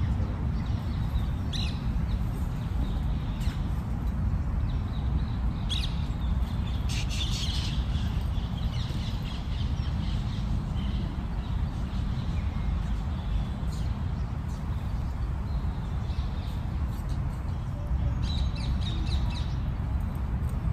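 Crows cawing in a few scattered bouts over a steady low rumble.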